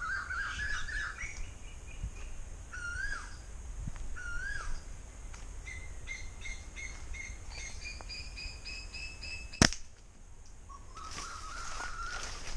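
Wild birds calling around a stand of trees and bamboo: whistled notes that rise and fall, then a quick run of repeated chirps. About nine and a half seconds in comes a single sharp snap, the loudest sound here, and after a short lull a new bird's notes begin near the end.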